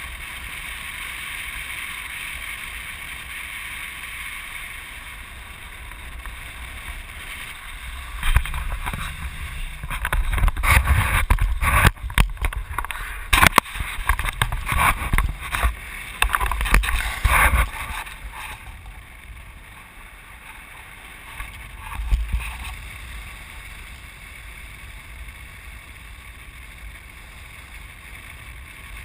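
Wind rushing over the microphone of a tandem paraglider in flight: a steady rush, then heavy, gusty buffeting from about eight seconds in that lasts some ten seconds, a short gust a few seconds later, and a quieter rush near the end.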